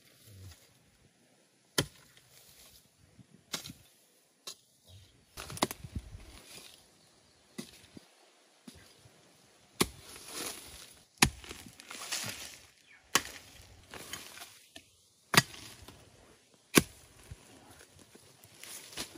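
A hoe chopping into soil and leaf litter, with about eight sharp strikes spaced one and a half to two seconds apart. Between the strikes, earth and dry leaves scrape and rustle as the blade is dragged back.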